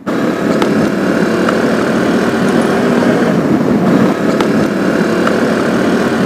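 Bajaj Pulsar 125 motorcycle on the move: its single-cylinder engine running steadily under a loud rush of wind on the microphone.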